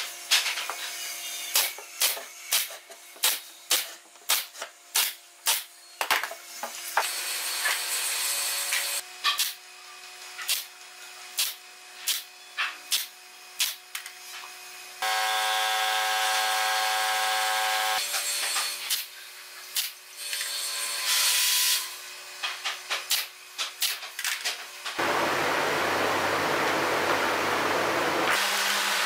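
Pneumatic brad nailer driving nails into wood, in quick runs of sharp shots about two a second, with short hisses of air. Partway through a steady machine drone sounds for a few seconds, and near the end a loud steady rushing noise with a low hum.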